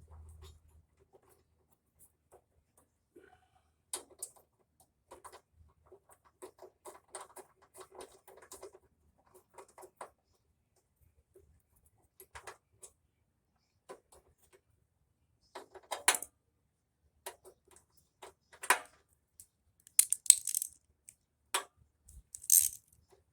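Small metal clicks, clinks and scrapes of a hand tool and screw hardware as the heater-box control cable adjustment is tightened: scattered light ticks, a quick rattling run about a quarter of the way in, then louder sharp clicks and scraping near the end.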